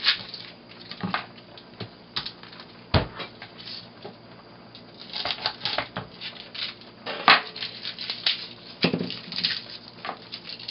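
Kitchen knife and fingers peeling and trimming an onion and garlic cloves on a wooden cutting board: irregular taps and knocks of the blade on the board, the sharpest about three seconds in, with clusters of small crackling ticks as the papery skins come away.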